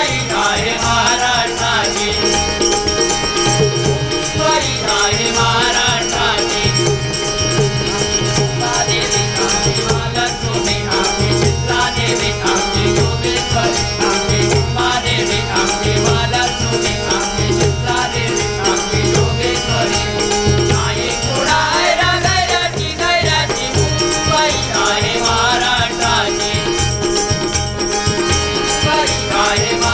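Marathi devotional bhajan: male voices singing over percussion that keeps a steady, regular beat, with a continuous high shaking or jingling layer.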